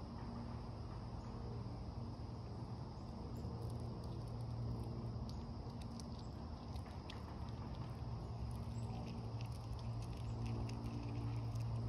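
Eastern chipmunk picking through a pile of black sunflower seeds on wooden boards: quick, irregular small clicks and rustles of seeds and shells, starting a few seconds in, over a steady low hum.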